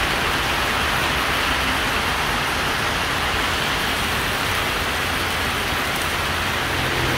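Heavy rain pouring steadily onto a road and pavement, a steady even hiss. Near the end the low hum of an approaching vehicle's engine starts to come in under the rain.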